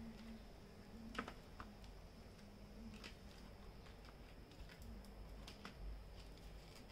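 Faint, scattered taps and light clicks of tarot cards being set down and slid into a row on a tabletop, one sharper click about a second in.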